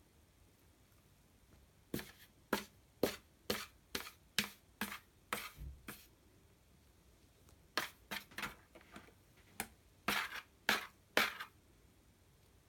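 A cat scratching and digging with its paws at paper inside a cardboard box, in quick rustling strokes at about two a second. There is a first run of about ten strokes, a short pause, then another run of about eight.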